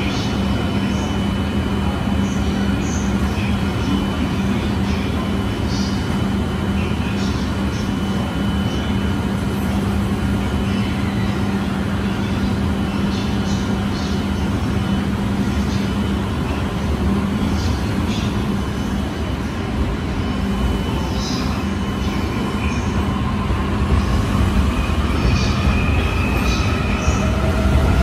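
E531 series AC/DC electric multiple unit standing at the platform with a steady hum, then starting to pull away in the last few seconds, its inverter-driven traction motors giving a rising whine as it gathers speed.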